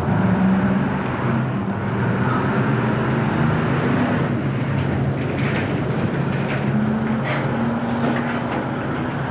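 Bus terminal ambience: diesel bus engines running steadily, with a few short knocks and faint high squeaks in the second half.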